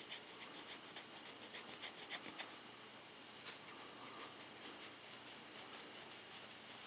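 Faint scratching of a lead-removal polishing cloth rubbed on the front face of a stainless Smith & Wesson 649 revolver cylinder, in quick repeated strokes for the first couple of seconds, then only now and then.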